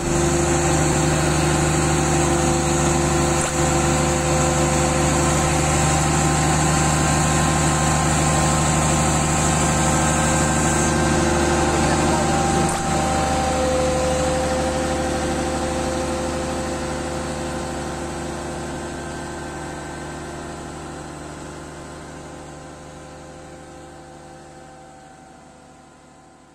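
Diesel engine of an SPMT power pack idling steadily, fading out gradually over the second half.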